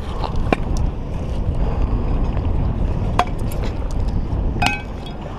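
Steady wind rumble on the microphone, with three sharp metallic clinks; the last one, near the end, rings briefly. The clinks come from a heavy catch of scrap metal on a magnet-fishing magnet knocking as it is hauled up.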